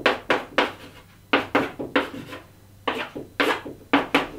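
Chalk writing on a green chalkboard: a quick, irregular series of short, sharp strokes and taps, each starting hard and dying away fast.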